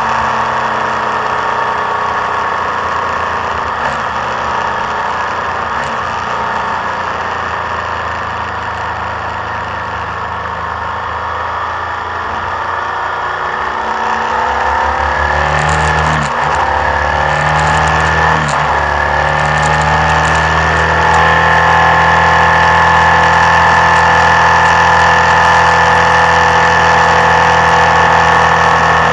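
The engine of the vehicle carrying the camera runs steadily over wind and road noise while it descends a mountain road. The engine note bends and dips twice around the middle, then holds steadier and a little louder near the end.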